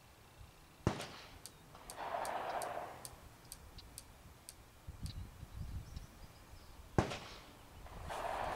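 Two rifle shots about six seconds apart, each a sharp crack followed about a second later by a longer rumbling echo.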